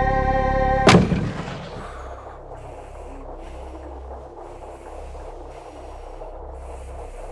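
A sustained, chord-like film score is cut off about a second in by a single sharp, booming impact that dies away over about half a second. After it, a much quieter low rumble continues, with soft hissing swells every second or so.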